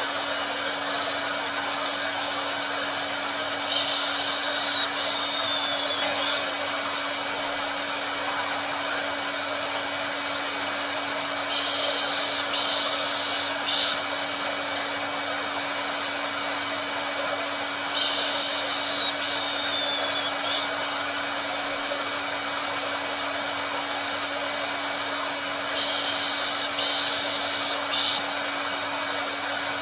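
Hair dryer blowing steadily: an even rushing hiss over a constant motor hum. About every seven to eight seconds a brighter, slightly louder hiss surges for two or three seconds, twice with a short falling whistle in it.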